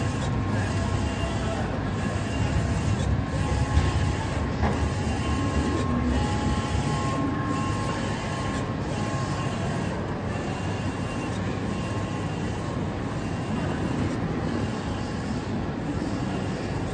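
DTF UV printer running: a steady mechanical whir from its carriage, motors and rollers, with a faint pattern that repeats about every second and a half.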